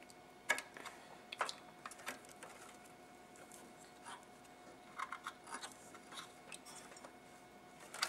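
Faint, scattered clicks and taps of fingers handling a graphics card and its PCIe slot latch inside a desktop PC case, a few single clicks early and a short cluster about five to six seconds in.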